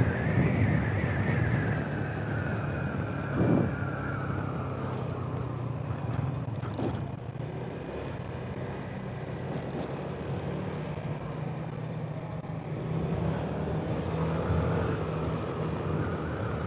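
Motorcycle engine running as the bike rides along, its higher tone falling over the first few seconds and then holding steady. A brief louder noise comes about three and a half seconds in.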